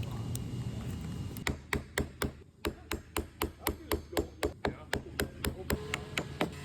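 Rapid, even series of sharp taps during the glazing of a wooden entry door, about four a second, starting about a second and a half in.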